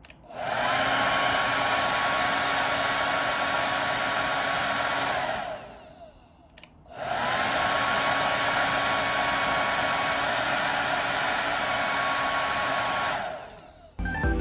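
MUJI high-airflow negative-ion hair dryer running at full blow, a steady rush of air with a motor whine. It is switched on twice: it runs for about five seconds, winds down and stops with a click, then starts again and runs for about six seconds before winding down.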